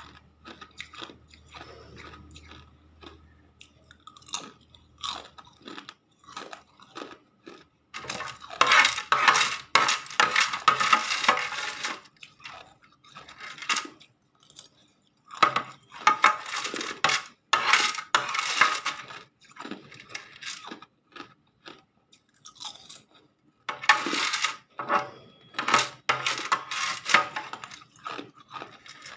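Hard ice being bitten and chewed close to the microphone. It crunches in three dense bursts of a few seconds each, with scattered single cracks and short pauses between them.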